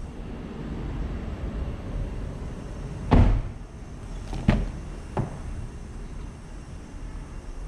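A car door shuts with a solid thud about three seconds in. The rear door is then unlatched and opened, with two sharper knocks a little over a second and two seconds later, over a low steady hum.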